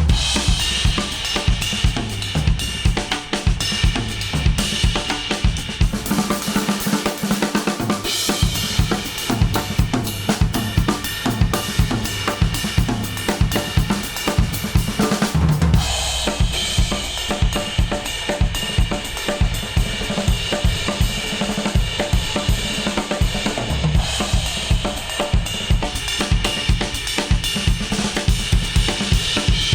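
Instrumental music with a steady full drum kit beat (snare, bass drum, hi-hat and cymbals), played back through wireless noise-cancelling earbuds and recorded at an artificial ear simulator. The brightness of the treble shifts a few times.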